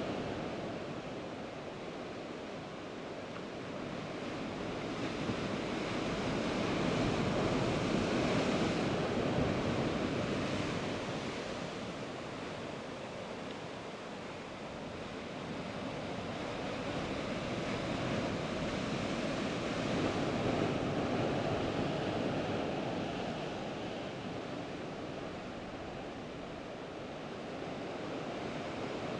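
Sea surf breaking and washing among shoreline rocks: a continuous rush of water that swells and eases about every ten seconds.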